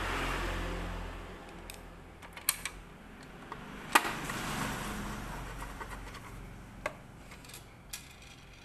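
Hand screwdriver turning screws in the sheet-metal frame over a photocopier's circuit board: two spells of scraping turns with a few sharp metallic clicks, the loudest about four seconds in.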